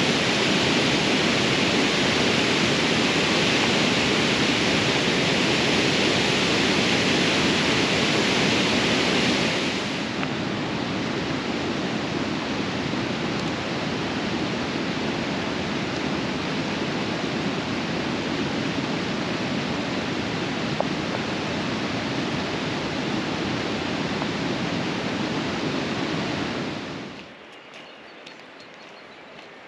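Waterfall on a mountain stream: a steady rush of falling water. It drops a step in loudness about ten seconds in and falls away suddenly near the end, leaving only a faint hiss.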